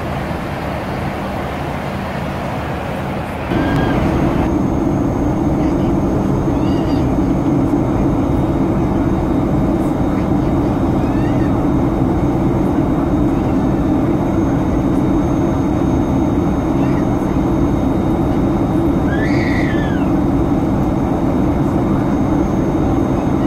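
Steady cabin roar of a Boeing 737-900ER in cruise, its CFM56 jet engines and the airflow heard from inside the cabin. About three and a half seconds in it jumps louder, with a deeper steady hum, and a few faint brief snatches of voices come through over it.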